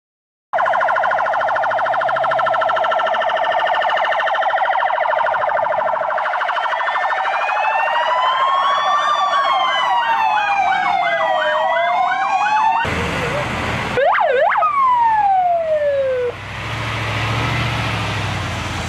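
Several emergency sirens on a convoy of fire engines sounding together. First comes a rapid warble, then slow rising-and-falling wails that overlap one another. Near the end a wail winds down and the rumble of the passing heavy vehicles takes over.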